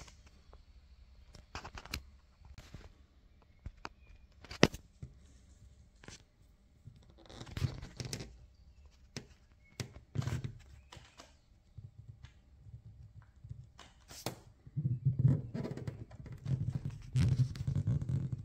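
Handling noise close to the microphone: scattered clicks and knocks with short bouts of rubbing, busier in the last few seconds.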